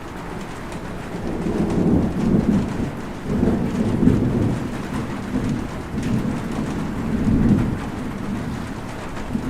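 Rolling thunder over steady rain: a low rumble swells about a second in and rises and falls several times.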